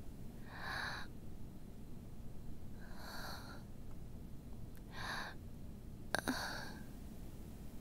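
A woman's soft, troubled breathing: four quiet sighing breaths a couple of seconds apart, with a small click just before the last one.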